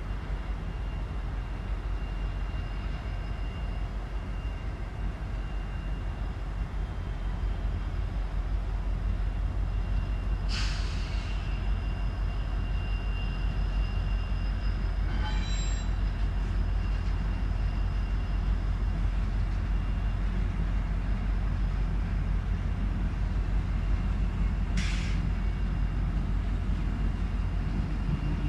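A train rolling past with a steady low rumble that slowly grows louder, a faint high wheel-squeal tone, and a few short hisses.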